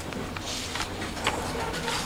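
Ambient sound of a large meeting hall: a steady hiss with scattered light clicks and taps.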